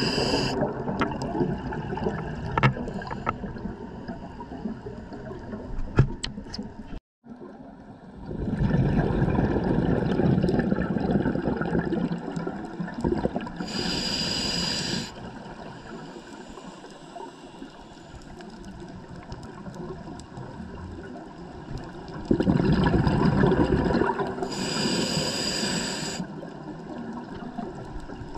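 Scuba diver breathing through a regulator underwater, heard through the camera housing: a rush of exhaled bubbles, then a short hissing inhalation, in a slow cycle with two inhalations about ten seconds apart. The sound drops out for a moment about seven seconds in.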